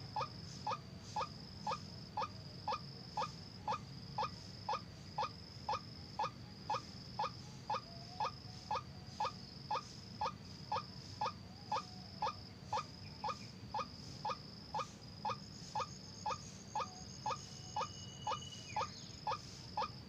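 White-breasted waterhen (kareo) call: a short clipped note repeated with machine-like regularity about twice a second, over a faint high-pitched whine.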